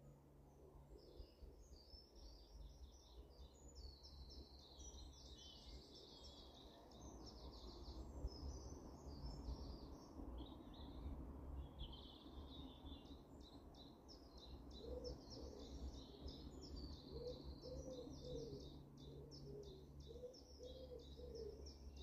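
Small garden songbirds singing in quick, high trills and chattering phrases, almost without a break apart from a short lull about halfway. A low, steady rumble lies underneath, and a run of low, repeated notes comes in for the last several seconds.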